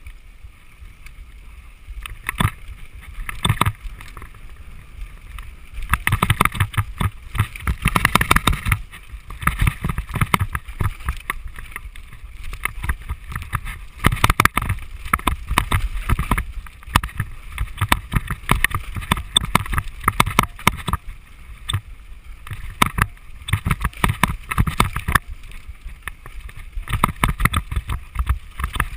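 Mountain bike rattling and clattering down a rocky dirt trail: tyres on dirt and stone with a dense, irregular run of knocks from the chain and frame, loudest about six to nine seconds in and again around fourteen seconds.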